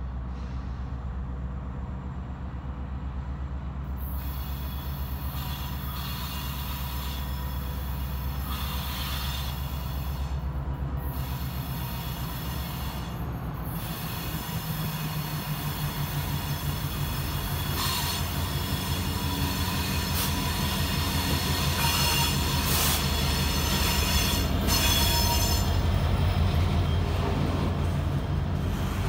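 Canadian Pacific diesel-electric freight locomotive running as it approaches and passes, then its train of boxcars rolling by with a high wheel squeal on the curved track. It grows louder toward the end as the cars pass close.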